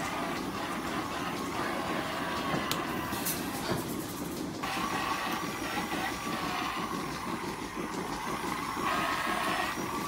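Steady machine running noise from milking-parlour equipment, with a handheld rotary teat-prep brush running on a cow's teats.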